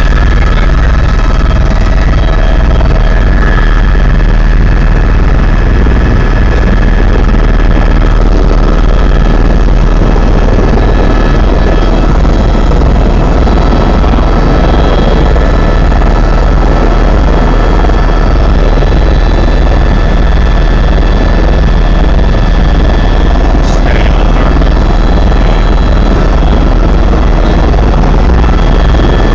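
Tour helicopter running steadily, heard from inside the cabin: a loud low rotor thrum with steady high whining tones over it.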